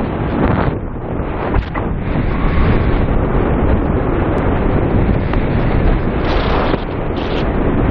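Steady, loud rush of airflow buffeting a camera microphone during a paraglider flight. It is heaviest in the low end and surges briefly now and then.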